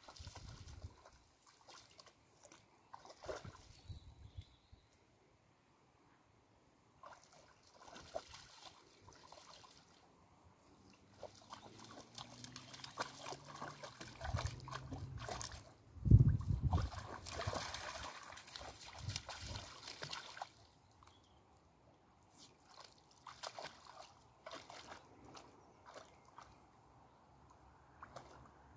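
A dog wading and splashing through shallow pond water, with sloshing and dripping in irregular bursts. The heaviest splashing comes a little past halfway, starting with a low thump.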